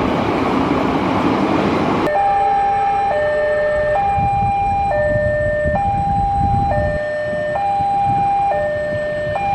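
A loud rushing noise cut off abruptly about two seconds in. It gives way to a two-tone siren alternating evenly between a high and a low note, each held just under a second, over a low rumble.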